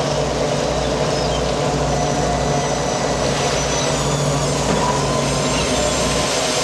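Steady running of a purse seiner's engines and deck machinery: a constant low hum under an even wash of noise that holds at the same level throughout.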